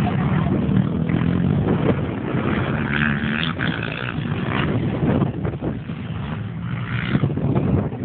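Racing quad (ATV) engine running and revving as a quad passes close by, with other quads running on the track.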